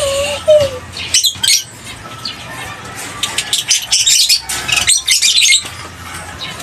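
African lovebirds chattering in bursts of rapid, high-pitched chirps, about a second in and again from about three and a half to five and a half seconds in.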